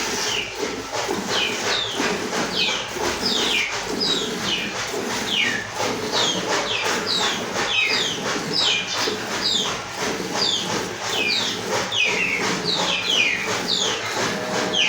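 Milk squirting into a pail as a cow is milked by hand, in a steady rhythm of about two jets a second, each a short falling hiss.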